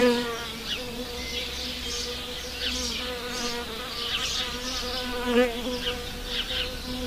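A wild bee buzzing in flight: a steady wingbeat hum whose pitch wavers slightly now and then, with short high chirps in the background.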